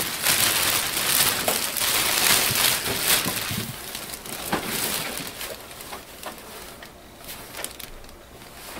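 Thin clear plastic bag crinkling and rustling as it is pulled down off a printer, loudest for the first few seconds, then fading to quieter scattered crackles.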